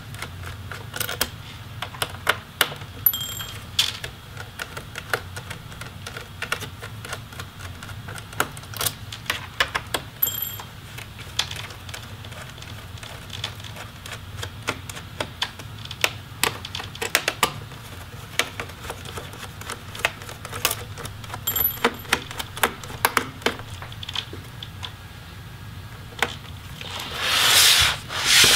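Screwdriver backing out the small screws of a laptop's bottom cover: a long run of sharp little clicks and taps, with a few brief metallic pings. Near the end a louder scraping rustle as the laptop is slid and turned on the table.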